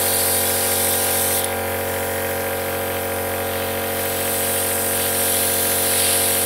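Small airbrush compressor from a Revell Airbrush Basic Set running with a steady hum. Over it the airbrush hisses as it sprays paint. The hiss drops away about a second and a half in and comes back for the last couple of seconds.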